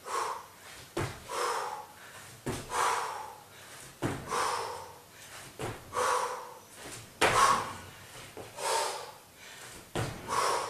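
Repeated frog jumps: each landing gives a sharp thud of feet on an exercise mat over a wooden floor, followed by a hard, breathy exhale. The pattern repeats about every second and a half.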